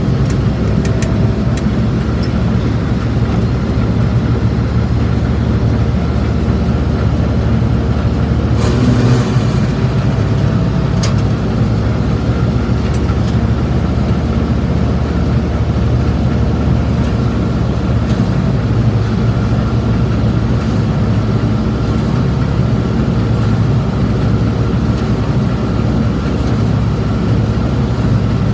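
International Harvester 1086 tractor's six-cylinder diesel engine running steadily under load while pulling a round baler, heard from inside the cab, with a brief hiss about nine seconds in.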